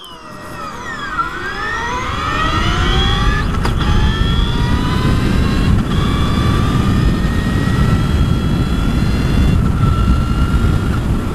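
Brammo Empulse R electric motorcycle accelerating hard from a standstill in sport mode. The motor's high, sci-fi-like whine climbs steeply in pitch over the first few seconds and then levels off to a slow rise. Under it, wind noise on the helmet microphone builds to a steady loud rush.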